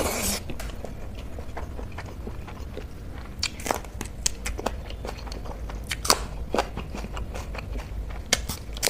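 A person chewing a mouthful and biting into a raw spring onion: irregular wet mouth sounds and crisp crunches, a few louder bites standing out.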